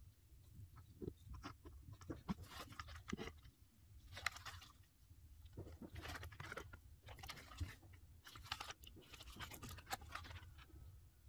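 Faint handling noise: gloved hands turning a small plastic toy truck over, giving irregular clicks, rubs and rustles of plastic against rubber glove.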